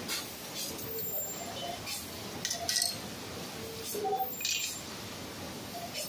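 A few light metallic clinks and taps as steel cable-holding fixtures loaded with HDMI cable ends are handled and set onto the steel mould of a vertical plastic injection molding machine, over steady background noise.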